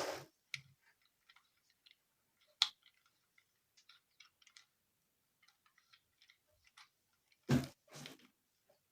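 Rubik's Cube layers being turned by hand: a run of faint, irregular plastic clicks and ticks, one sharper click about two and a half seconds in. Near the end come two short, louder sounds.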